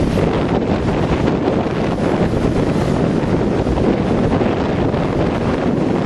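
Strong wind blowing straight onto the microphone, a steady loud rush, with sea waves breaking in the surf underneath.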